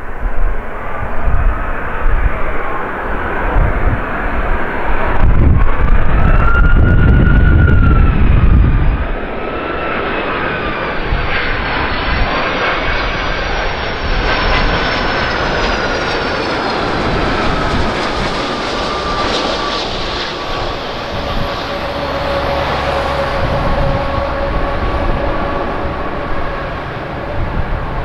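Boeing 757's Rolls-Royce RB211 turbofan engines on a low approach and passing by, their whining tones wavering and then falling in pitch about halfway through. A heavy low rumble is loudest in the first nine seconds and then eases off.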